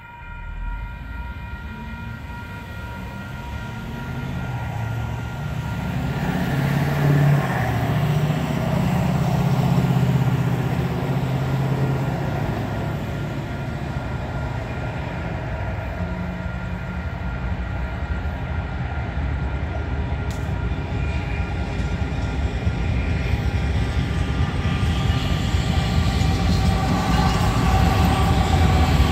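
Railroad grade-crossing warning bell ringing steadily over the rumble of an approaching diesel freight locomotive. The locomotive grows louder toward the end as it reaches the crossing.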